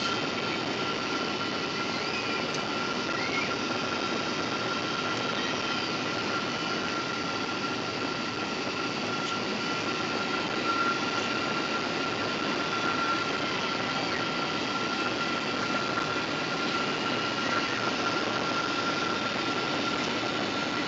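Jet airliner's turbofan engine and airflow heard inside the cabin during the approach to land: a steady rushing noise with a constant high-pitched whine.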